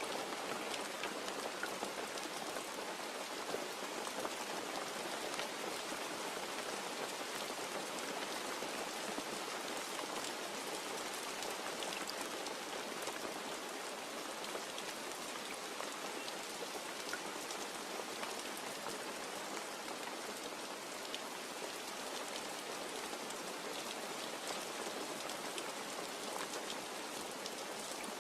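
Steady rain falling and pattering on a surface, with many close individual drops ticking through an even hiss; no thunder.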